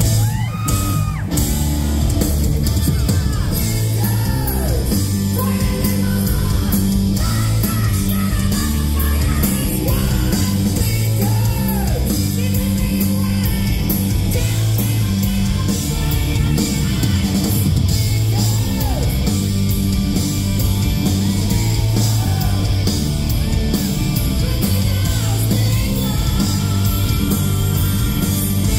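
Live hard rock band playing loudly, with electric guitars through Marshall amps, bass and drums under a male lead singer singing and yelling with bending, sliding vocal lines.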